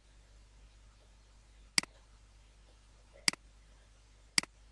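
Computer mouse clicks: three sharp clicks about a second apart, each a press followed at once by a fainter release click.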